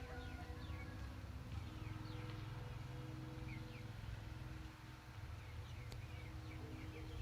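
Bamboo flutes on a Vietnamese flute kite (diều sáo) droning several steady tones together in the wind, over a low wind rumble, with short falling bird chirps.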